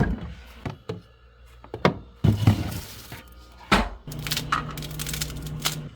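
Kitchen handling sounds: a string of separate knocks and clinks of dishes and food containers being set down and moved, with a brief scraping rustle in the middle. A low steady hum starts about four seconds in.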